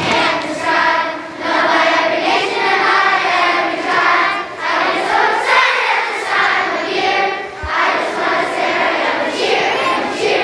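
A large group of children singing together as a choir, with the steady, continuous sound of many voices at once.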